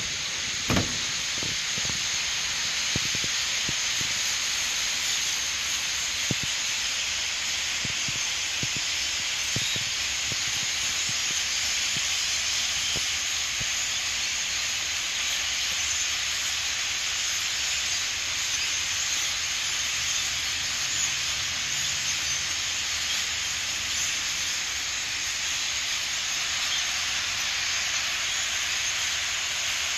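A large flock of European starlings passing overhead, heard as a steady, dense hiss of many birds. A sharp knock comes about a second in.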